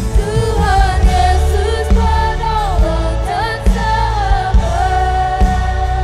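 Live worship band playing a gospel pop song: keyboard and drums over a steady beat, with a lead melody that slides and bends between notes.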